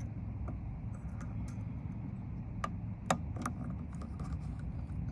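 A few small, sharp clicks from a Lishi pick-decoder working the wafers inside a car door lock, over a steady low rumble.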